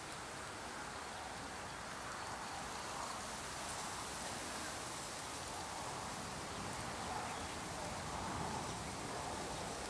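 Strong wind rustling bamboo leaves: a steady, noisy rush that swells a little in gusts.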